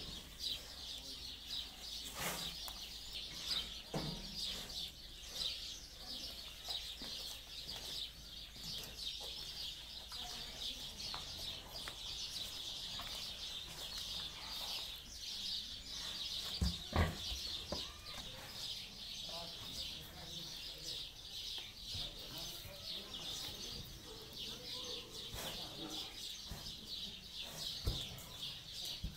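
Farmyard ambience: a steady high-pitched chorus of chirping birds, with chickens clucking now and then and a few sharp knocks, the loudest about halfway through.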